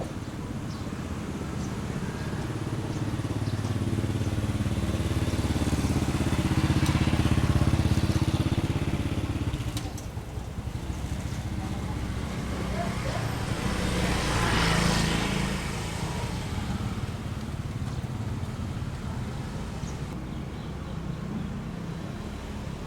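Motor vehicles passing by with a steady engine rumble: one swells and fades about 8 seconds in, and a second passes with a hiss about 15 seconds in.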